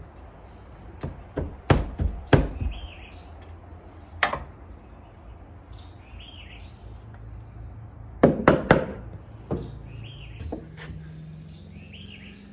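Irregular knocks on wood as a wooden bird block is tapped into place between rafters: a handful about a second in, one near the middle, and a quick cluster of about four later on. A bird repeats a short chirp every couple of seconds in the background.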